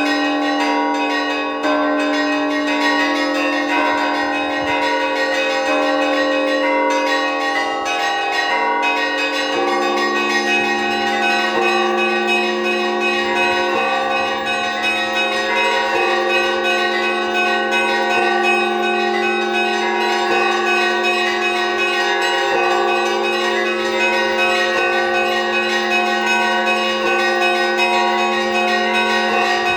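Orthodox cathedral bells rung by hand in an improvised peal, many bells sounding together in a dense, unbroken pattern. A deeper bell comes in about ten seconds in and keeps ringing under the smaller ones.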